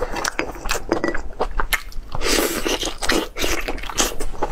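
A person chewing boiled lamb rib meat with the mouth open, close to the microphone: a rapid, irregular run of mouth clicks.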